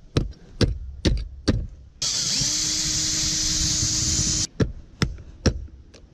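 Sharp knocks of tools working on a locked box, then about two seconds in a power tool spins up, runs steadily for about two and a half seconds and stops suddenly, followed by three more knocks.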